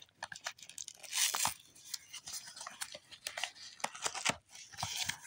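Cardboard packaging box being cut and torn open with scissors. There are short ripping tears, the loudest about a second in and another near the end, among scattered sharp clicks.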